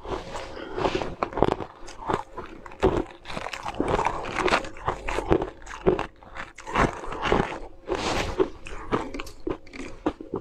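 Close-miked chewing of ice in the mouth: many irregular, sharp crunches.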